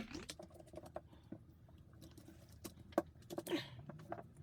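Light, irregular clicks and taps of impact driver parts being handled and fitted together during reassembly, with a sharper click about three seconds in.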